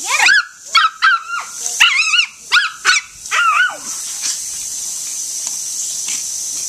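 Small terrier barking in a rapid run of short, high, yipping barks for about the first four seconds, then falling quiet. Underneath, a lawn sprinkler's spray hisses steadily.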